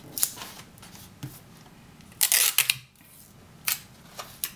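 Clear sticky tape and black card being handled as tape is pressed down over cardboard tabs: short crinkles and clicks, with one louder rasp of about half a second a little over two seconds in.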